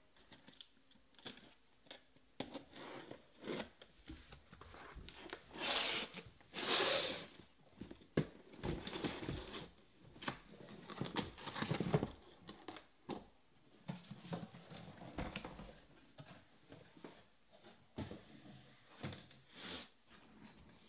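Cardboard shipping case being cut and opened: a box cutter scraping along the tape, packing tape and flaps tearing loudest about six and seven seconds in, then the cardboard and the shrink-wrapped card boxes inside scraping, sliding and knocking as they are unpacked and stacked.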